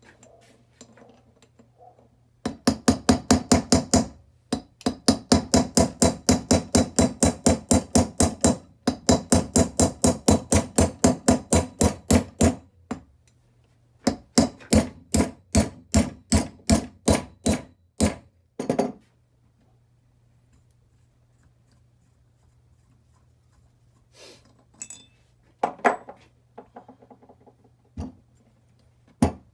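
A hammer tapping on metal engine parts during cylinder-head assembly: quick light taps at about six a second in long runs, then a slower run of about two a second, then a few scattered knocks near the end.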